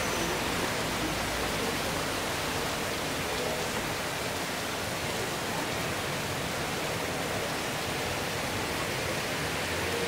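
Heavy rain pouring down over rooftops, a steady, even hiss with no single drops or thunder standing out.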